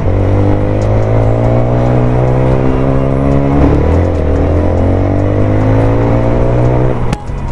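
Bajaj Pulsar motorcycle engine pulling under throttle, its pitch climbing steadily, dipping at a gear change about halfway, then climbing again until the throttle is shut off sharply near the end.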